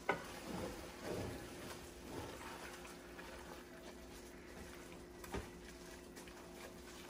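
Thick egusi soup cooking softly in a pot on low heat, with a few low, soft sounds from the thick mixture in the first couple of seconds. A light knock comes right at the start and another about five seconds in.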